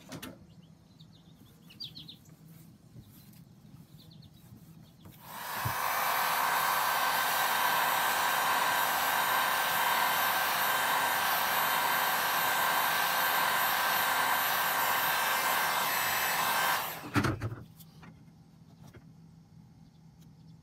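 Warrior electric heat gun switched on about five seconds in, its fan blowing hot air steadily with a faint whine for about twelve seconds to soften Eternabond tape adhesive, then cutting off with a knock.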